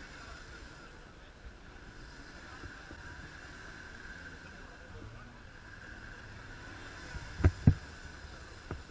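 Land Rover Defender's engine running low while the truck sits axle-deep in a mud pool. About seven and a half seconds in come two loud, short thumps in quick succession, then a smaller one.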